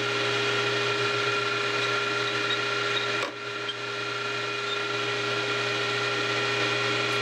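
Small bench lathe running steadily with a wooden model wheel spinning in it: an even motor hum with a steady whine, dipping briefly about three seconds in.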